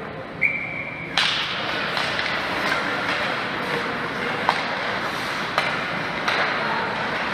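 Sounds of a team game in play: a short steady high whistle lasting under a second, then a sharp crack and a string of scattered knocks and thuds about a second apart, over steady background noise.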